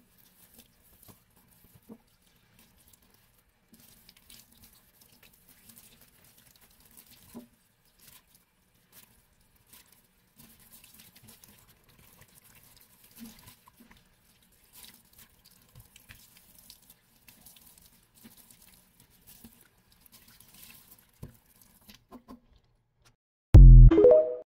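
Soapy sponge scrubbing a stainless steel sink with cleanser: faint, scattered wet rubbing and squishing with small clicks. Near the end, a short loud tone from the TikTok end screen.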